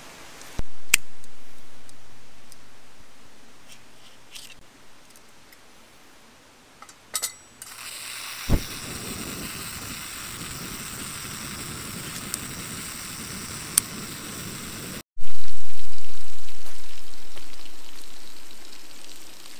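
Camp cooking in short cuts: a few sharp clicks and knocks, then about seven seconds of steady hissing from the camp stove and frying pan, ending abruptly.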